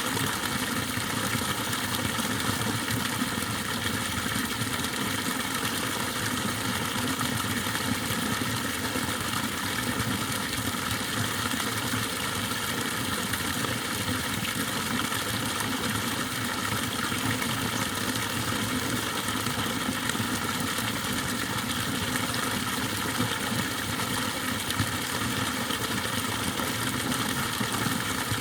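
Water pouring steadily from an overflow spout pipe out of a rice paddy into a fish pond: a continuous, even splashing rush with no breaks.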